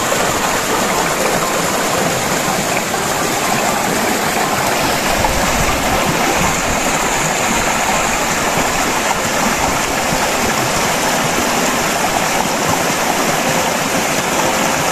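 Fast-flowing mountain stream rushing over boulders and pouring through a fishnet on a bamboo frame: a loud, steady rush of water.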